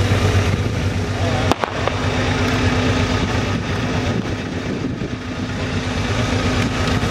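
Ferret scout car's Rolls-Royce six-cylinder petrol engine idling steadily close by. A single sharp crack sounds about a second and a half in.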